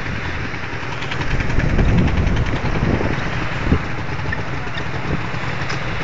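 Steady rushing of the river running under the footbridge, with irregular low thumps and rumbles over it.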